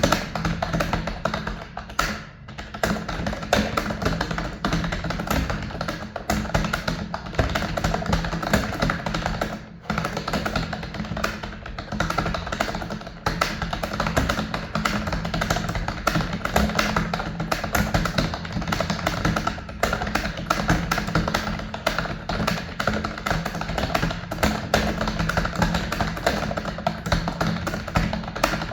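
Fast, continuous typing on a computer keyboard, a rapid irregular clatter of key clicks with only brief pauses, over background music.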